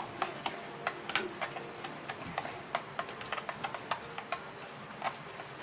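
Light, irregular clicks and taps of a utensil against a bowl, several a second, from mixing pancake batter by hand.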